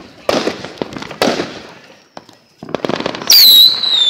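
Small consumer fireworks going off: two sharp bangs in the first second and a half, then a rapid crackling, and about three seconds in a loud shrill whistle that drops slightly in pitch and holds, the squeal of a whistling ball rocket.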